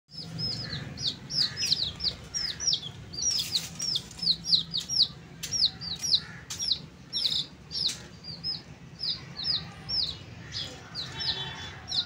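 Baby chicks peeping, several of them together: a rapid run of high, short peeps, several a second, each sliding down in pitch.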